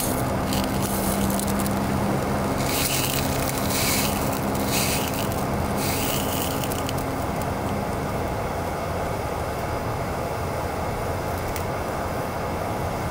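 Sausages and fries sizzling in a frying pan over a gas canister stove, with several louder surges of sizzle in the first six seconds as chopsticks stir and scrape the food.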